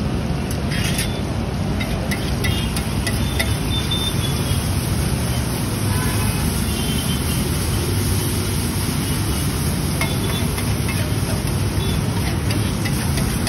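Metal spatula scraping and tapping on a large flat iron griddle (tawa) as an egg mixture is chopped and pushed around, with short clicks and brief metallic squeaks now and then, over a steady low rumble.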